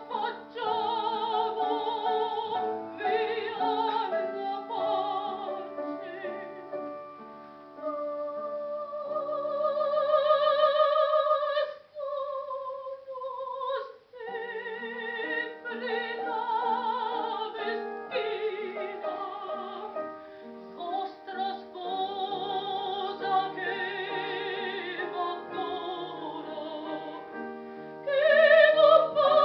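A high operatic voice sings with wide vibrato over piano accompaniment. About 12 seconds in the voice slides downward and breaks off briefly before resuming; near the end the singing grows louder.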